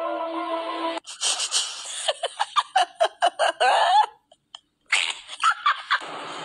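A second of marimba-like background music cuts off, then a person laughs hard in rapid repeated bursts for about three seconds. After a brief silence, a noisy stretch of unclear sound follows near the end.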